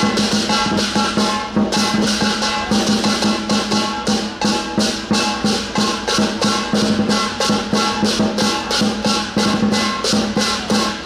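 Chinese lion dance percussion of drum, gong and cymbals playing a steady, fast beat, with cymbal clashes about three to four a second over a sustained ringing tone. It stops right at the end.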